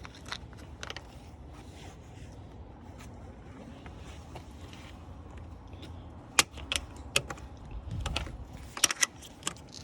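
Scattered sharp plastic clicks and taps as a plastic hinge-pin cover is handled and snapped onto a Toyota 4Runner door hinge. There are a couple near the start and a quicker run of clicks in the last few seconds, with a dull thump among them.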